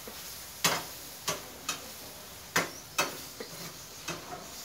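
Kitchen knife striking a thick wooden chopping block while cutting raw beef: six sharp, irregular knocks, the loudest about half a second in and near the middle.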